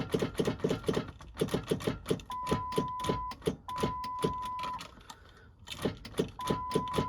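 Rapid chattering clicks, about six to seven a second, from the starter circuit of a 2000 Ford Excursion's 7.3L Powerstroke diesel as it is tried without cranking: a no-start. The mechanic judges the click too loud to be a battery voltage problem. A steady electronic warning beep sounds three times, about a second each, over the clicking, which pauses briefly near the end.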